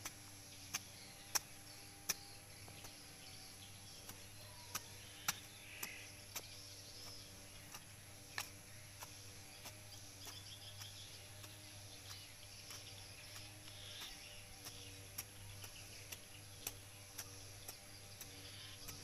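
A long metal blade jabbed again and again into soil and grass roots to dig a small hole, giving irregular sharp chops and scrapes, roughly one a second, a few of them much louder.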